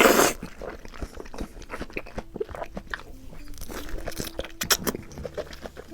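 Biting into and chewing a juicy Yunnan bingtang orange (Chu orange): one loud bite at the start, then a run of soft, wet chewing clicks.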